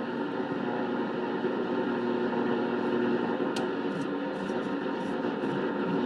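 Static and hiss from a restored Patterson Model 16C valve communications receiver tuned to the shortwave band, heard through a permanent-magnet speaker. A low steady whistle sits in the noise for the first few seconds.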